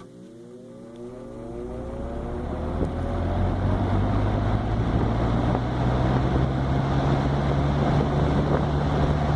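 Hoover box fan's two-speed electric motor switched on and spinning up from rest. A rising whine over the first few seconds while the rush of air grows louder, then it runs steadily with a hum and air noise.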